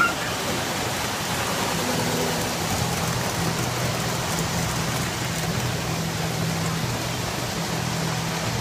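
O-gauge model trains running on the layout's track: a steady rushing rumble, with a low hum joining about two seconds in.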